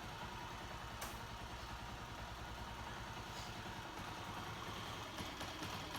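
Honda CG 125's single-cylinder four-stroke pushrod engine idling steadily, its valve clearances freshly adjusted so that it runs smoothly.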